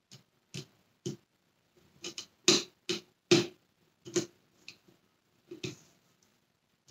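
Short plastic clicks and knocks, about a dozen at irregular intervals, from hands fitting small screws into the plastic housing ring of a Dyson Cinetic Big Ball vacuum cleaner. The loudest knocks come about halfway through.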